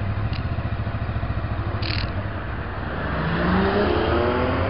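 Motorcycle engine running at low speed, with road and wind noise on the microphone. About three seconds in, an engine note rises in pitch as a vehicle accelerates.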